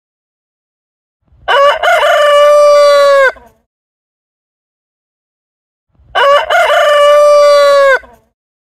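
Rooster crowing twice, each a cock-a-doodle-doo of about two seconds with a broken opening and a long held final note that falls away at the end.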